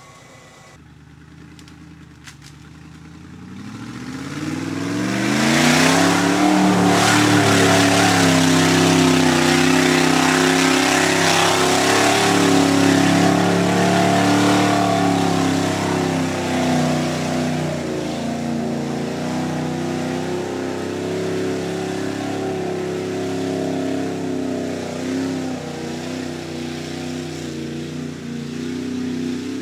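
Off-road 4x4's engine revving up hard over a few seconds and held at high revs as it churns through deep mud, with the rush of mud and water thrown by the wheels; later the revs ease a little and hold steady.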